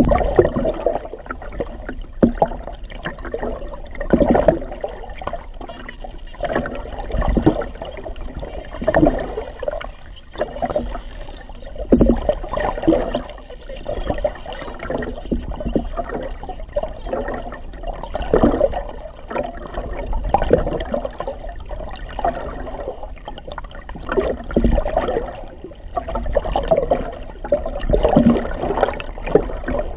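Underwater sound of water washing over a submerged GoPro housing in irregular surges, with faint high gliding whistles from the surrounding bottlenose dolphins.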